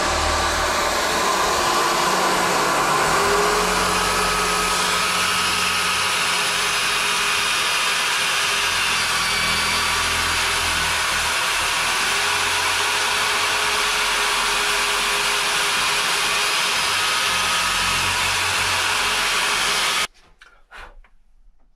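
Power drill fitted with a round sanding disc, running steadily as it sands the edge of a hole cut in a wall panel, then cutting off suddenly near the end.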